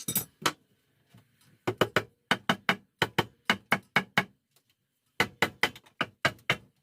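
Hammer blows in quick succession, about four a second, in two runs with a short pause between.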